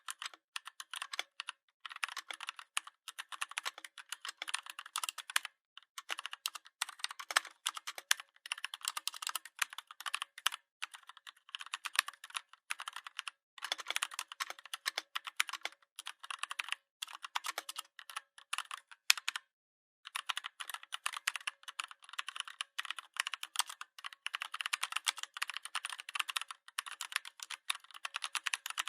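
Computer keyboard typing: rapid, continuous key clicks in runs of a few seconds, with brief pauses and one pause of about a second a little past the middle.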